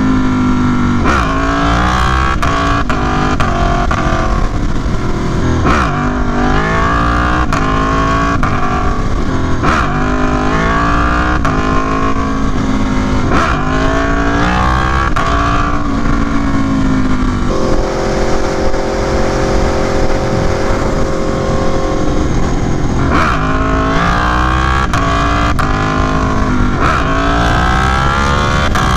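Aprilia Tuono V4 Factory's 1100 cc V4 engine pulling on the road, its pitch rising and falling again and again with the throttle. For about five seconds past the middle it holds a steady note.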